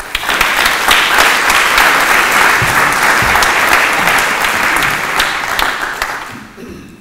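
Audience applauding, many hands clapping together. It starts at once, holds steady and dies away near the end.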